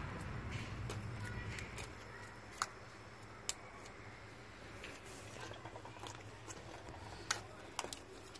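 A few scattered soft clicks and small pops from slime being squished and handled, over a faint low rumble that fades out in the first couple of seconds.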